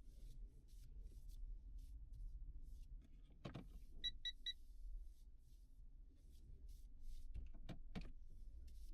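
Three quick electronic beeps in a row about four seconds in, over a low room hum with faint light ticking and a few soft clicks.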